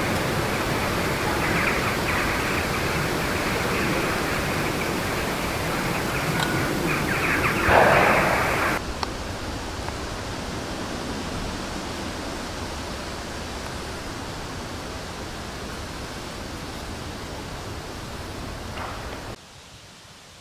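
A steady rushing noise, with a brief louder scraping rush about eight seconds in. The noise drops in level about nine seconds in and again just before the end.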